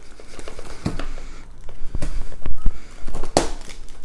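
A cardboard diamond painting kit box and its plastic-wrapped contents handled clumsily with plastic tiny hands: rustling and crinkling, with several sharp knocks and bumps, the loudest in the second half.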